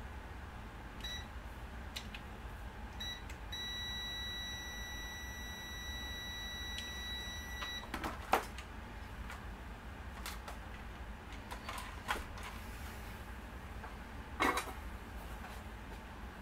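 Digital multimeter's continuity beeper sounding as the test probes bridge points on the remote control's circuit board: two short beeps about one and three seconds in, then one steady beep held for about four seconds. A few sharp knocks follow.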